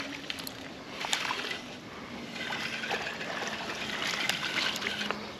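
River water trickling, with light splashing and a few small clicks.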